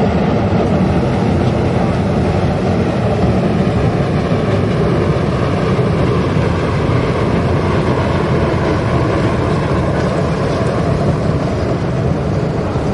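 Bolida Rotexmaster wood-pellet biomass burner firing a long open flame, giving a steady, loud, deep rushing noise that does not change.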